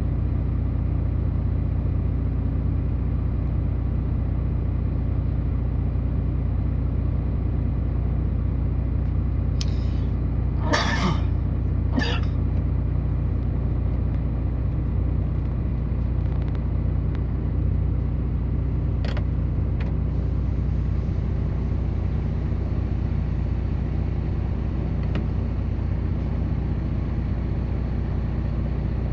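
Heavy diesel engine of coal-mining machinery running steadily with a deep hum. A short hiss comes about ten seconds in, with another soon after and a fainter one later.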